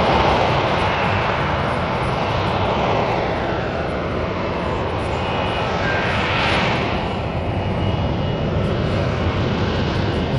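F-35B jet fighter hovering, its engine and lift fan making a loud, steady jet roar. A whooshing sweeps slowly up and down in pitch as the aircraft hangs and turns.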